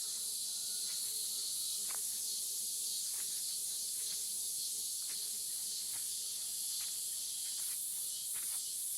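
Cicada singing: a steady, high-pitched continuous buzz.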